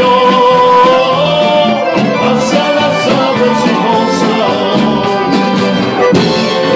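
Accordion-led folk band music playing a sustained melody with percussion hits, loud and steady.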